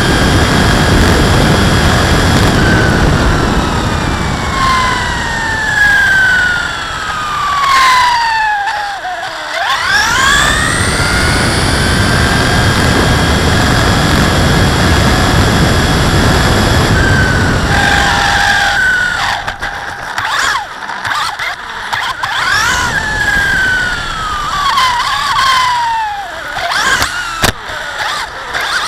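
HPI Blitz radio-controlled short-course truck running on an asphalt street, heard from a camera mounted on the truck: its motor and gears whine, gliding down as it slows and rising sharply as it speeds up again, several times, over a steady rumble of tyres on the road.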